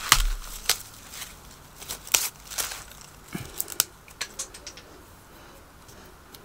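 Dry husks being pulled off an ear of popcorn maize by hand: a run of sharp crackles and rustles that thins out after about four seconds.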